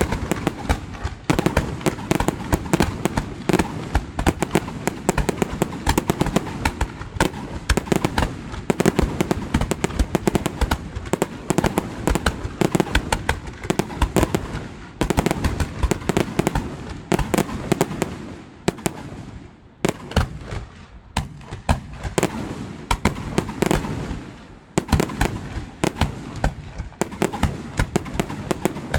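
Fireworks display: a dense, irregular barrage of bangs going off in quick succession. It thins out briefly about two-thirds of the way through, then picks up again.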